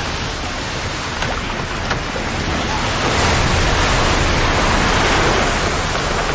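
Storm at sea: wind and waves surging around an open wooden longship, a dense rushing wash of noise that gets louder about three seconds in.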